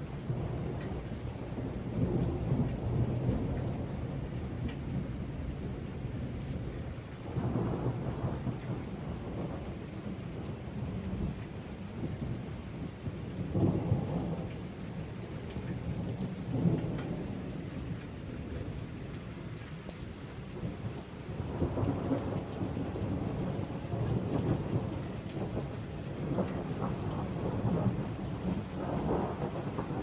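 A thunderstorm: thunder rumbling again and again over steady rain. The low rolls swell and fade several times and grow longest and strongest in the last third.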